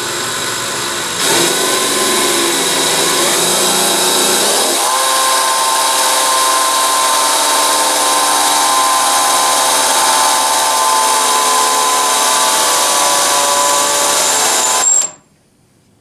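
Cordless drill running with a small bit, boring a drain hole through the steel base pan of a window air conditioner. It gets louder a little over a second in, its whine changes pitch about five seconds in, and it stops suddenly about a second before the end.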